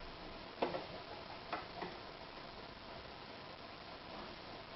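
A few light clicks, the first about half a second in and two more around a second and a half in, from parts of a sewing machine being handled, over quiet room tone.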